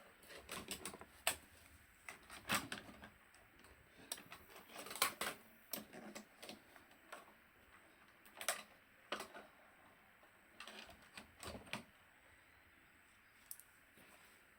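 Irregular light clicks and taps in small clusters, thinning out toward the end: small hard objects being handled at a workbench.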